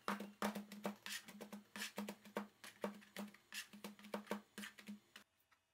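Kitchen knife chopping grated carrot on a plastic cutting board: quick, uneven knocks about three or four a second, each with a low thud from the board and table. The chopping stops abruptly near the end.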